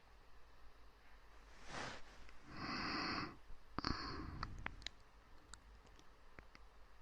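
Soft, close-miked human breathing: a short breath about two seconds in, a longer exhale around three seconds, and another breath at four seconds, followed by a scatter of small, sharp clicks.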